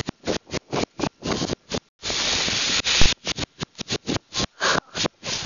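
Wind rushing over the microphone during a fast tow ride, the sound cutting out to dead silence many times in quick succession, with one unbroken stretch of rushing about two seconds in.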